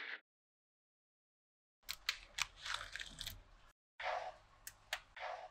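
Small magnetic balls snapping and rattling together: a run of sharp clicks with crunchy scraping between them, starting about two seconds in and pausing briefly near the middle.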